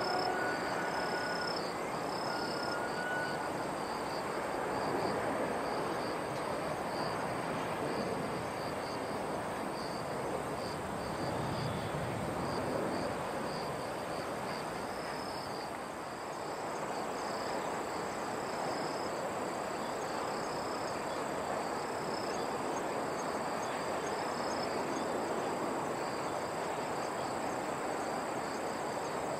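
Insects chirping in short, repeated trills over a steady wash of outdoor background noise.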